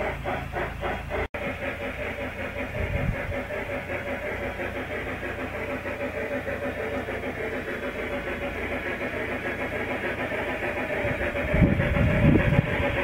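Garden-railway model steam train running on its track: a steady mechanical whine with fine, even clicking of the wheels over the rails and a hiss. Louder low rumbling near the end.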